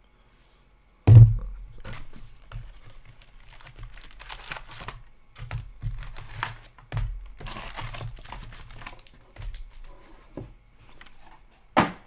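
Foil card packs rustling and crinkling as they are pulled out of a cardboard hobby box by hand and stacked, with small knocks and clicks throughout. A loud thump about a second in and a sharp knock near the end.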